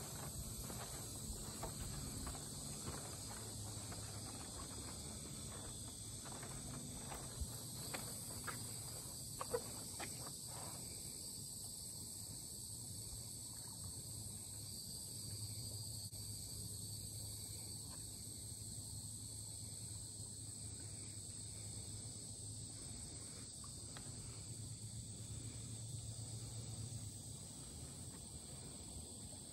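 Steady, high-pitched chorus of insects. A few scattered clicks or taps fall in the first ten seconds.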